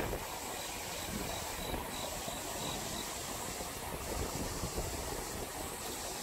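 Steady outdoor wind noise over open rice paddies, with a faint, high, evenly repeated chirp during the first half.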